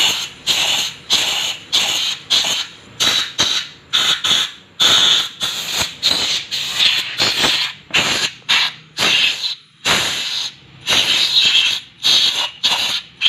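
Compressed-air hand tool on an air hose fired in short, repeated hissing bursts, about one and a half a second, with a slight squeal.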